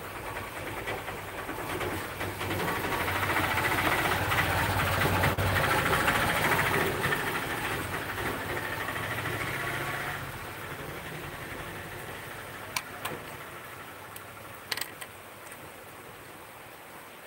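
A rumbling noise that swells over several seconds and dies down about ten seconds in, followed by a few sharp clicks as a ballpoint pen's cap is pulled off.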